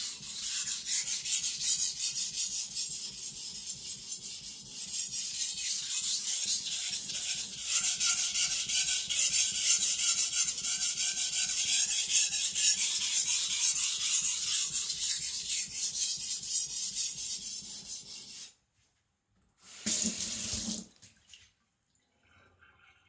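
Aogami carbon-steel gyuto blade stroked rapidly back and forth on a wet Naniwa Professional whetstone under firm pressure, a continuous gritty scraping that stops about 18 seconds in, followed after a short pause by one more brief scrape. The strokes are lowering the edge angle and raising a burr.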